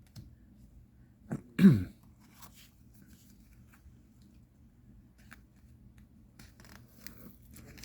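A man's short cough about a second and a half in. Faint scattered rustles and clicks of trading cards being handled follow.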